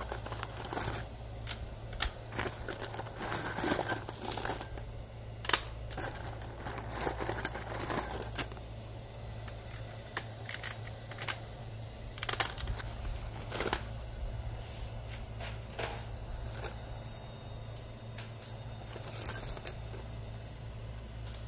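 Hex-head metal roofing screws clinking against one another and against welded wire mesh as they are handled and dropped into it, with the plastic bag crinkling. The clicks come thick and fast for the first eight seconds or so, then thin out to scattered clinks.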